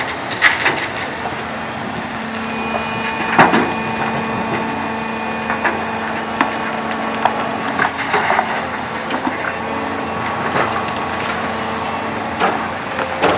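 Hyundai R800LC-8 electric-driven hydraulic excavator running with a steady hum of several held tones while it dumps a bucket of rock into a haul truck's steel body. The rock clatters and thuds into the bed, loudest about three and a half seconds in, with scattered knocks after.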